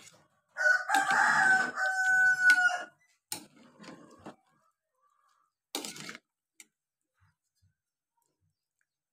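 A rooster crowing once, a single long crow of about two seconds, followed by a few brief knocks and scrapes.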